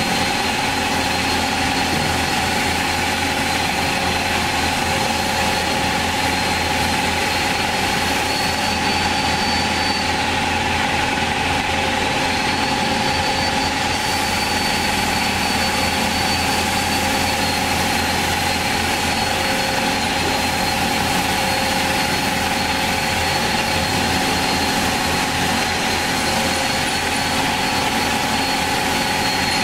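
Hyd-Mech S-20A horizontal band saw running: a steady machine hum with a high, thin whine that drops out briefly about ten seconds in.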